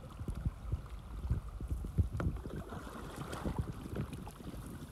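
Wind buffeting the microphone in an open canoe on a river, with irregular small splashes and knocks from paddling and water against the hull.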